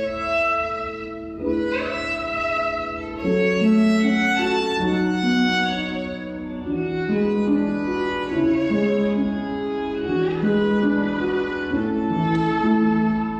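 A violin playing a slow melody of held notes.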